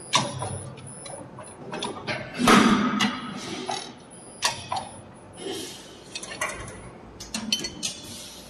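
CNC pipe clamp bending machine working: irregular mechanical clicks and knocks, with a louder clattering burst about two and a half seconds in.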